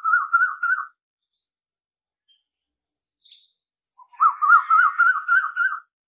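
Koel calling: a fast run of short, rising notes, about six a second, that stops just under a second in. After a pause, a second run starts about four seconds in and lasts nearly two seconds.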